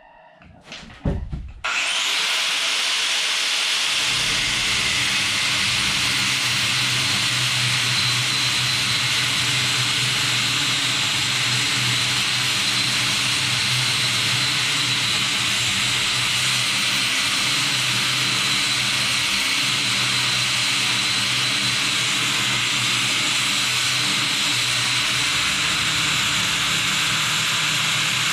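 A handheld power tool switches on about two seconds in, just after a knock, and then runs steadily under load with a high whine.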